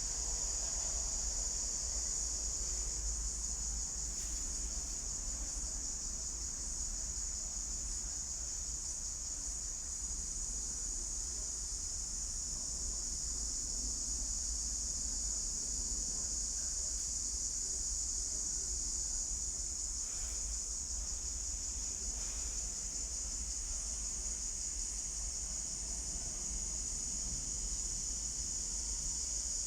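Steady, unbroken high-pitched chorus of insects, crickets or similar, over a constant low rumble.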